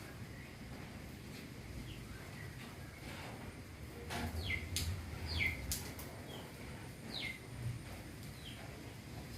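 A few short bird chirps, each sliding quickly downward, over a steady soft hiss of falling rain. A few sharp ticks come in the middle.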